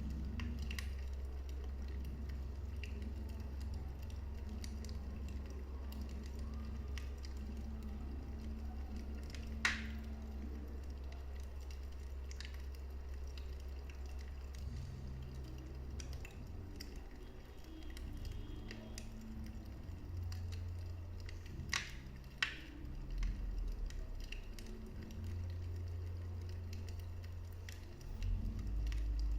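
Wood fire burning in a fireplace, crackling with faint ticks and a few sharp pops, one about ten seconds in and two close together near the twenty-two second mark, over a low steady drone.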